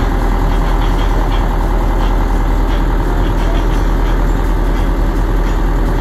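Engine of a covered passenger tour boat running steadily under way, heard aboard as a loud, constant low rumble.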